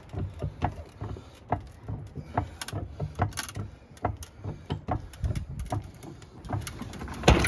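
Scattered, uneven metal clicks and light knocks, a few a second, with one louder knock near the end, from work with a floor jack under a tractor's front axle.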